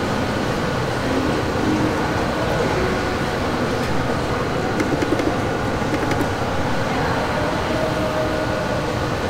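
Steady rushing background noise of a shopping-mall concourse, with no clear strokes or breaks.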